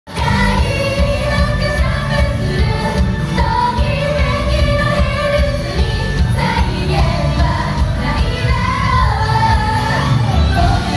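Japanese idol pop song performed live: several young women singing into microphones over pop music with a heavy bass beat, recorded on a smartphone in the crowd.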